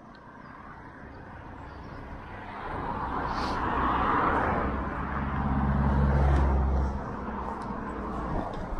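Road traffic: a vehicle grows louder and passes close by, with tyre noise building and then a low engine hum, loudest between about four and seven seconds in. It then drops back to a quieter background.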